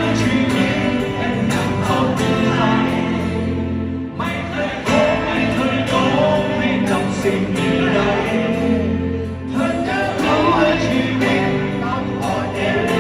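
Live concert music: a band playing drums and bass under a sung vocal line.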